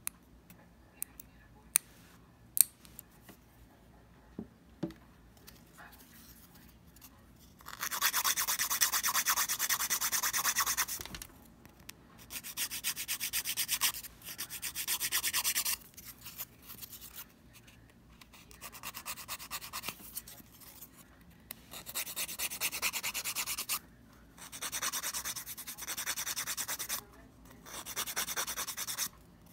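Fingernails being shaped: a few sharp snips of a steel nail clipper in the first several seconds, then a long nail file rasping across the nail edges in bursts of rapid back-and-forth strokes, each burst lasting a couple of seconds.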